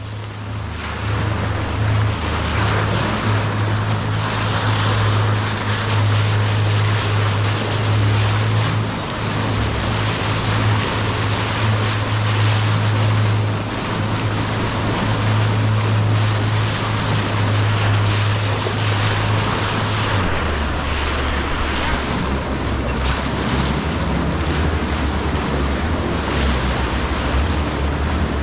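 Outboard motor of a small boat running steadily under way through river rapids, with the rush of churning water over it. About twenty seconds in, the engine note drops lower.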